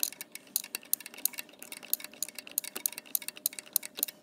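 Light, rapid clicking, about six clicks a second and slightly uneven, from a ratchet being worked to run in a bolt on a diesel fuel injector.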